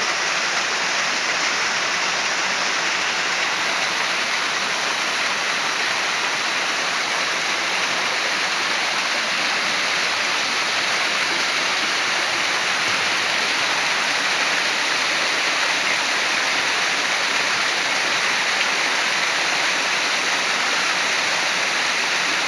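Waterfall: a steady, unbroken rush of falling water, loud and even, with its strength in the upper-middle range.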